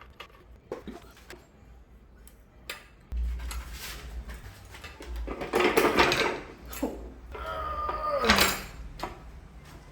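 Steel gearbox parts of a Land Rover LT76 gearbox clinking and scraping as the layshaft and bell housing are handled, with a few sharp knocks at first and a louder clatter and scrape about six seconds in. A short tone falling in pitch follows near the end.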